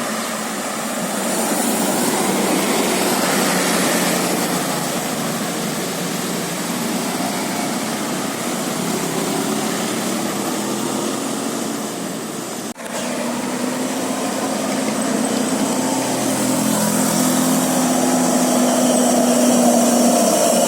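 Bus engine running with road noise. About two-thirds of the way in the sound drops out for a moment and picks up again.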